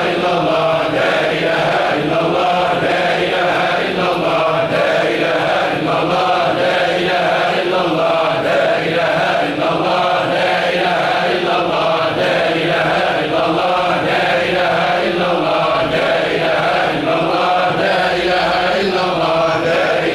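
A large group of men chanting Sufi dhikr together in unison, repeating one short phrase over and over in a steady rhythm about once a second.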